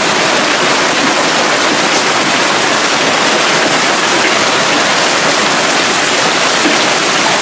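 Hailstorm: hail and heavy rain pelting down in a loud, dense, steady hiss.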